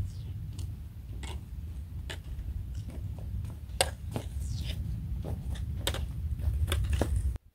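Trekking pole tips and boots clicking and scuffing on sandstone slickrock as a hiker walks closer, about two to three clicks a second and growing louder, over a steady low wind rumble on the microphone. The sound cuts off suddenly near the end.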